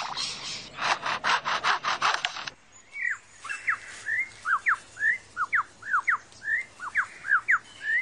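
Superb lyrebird calling in display: a rapid run of harsh clicking bursts, about five a second, then from about two and a half seconds in a string of short, quick-sweeping whistled notes, about three a second.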